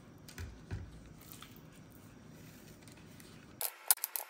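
Pieces of wet, marinated chicken laid by hand one at a time onto a parchment-lined metal baking tray: faint soft squishy pats, with a few sharper taps near the end that are the loudest sounds.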